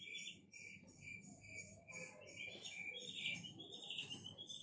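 Faint, regular high-pitched chirping in the background, about five chirps a second, like a cricket.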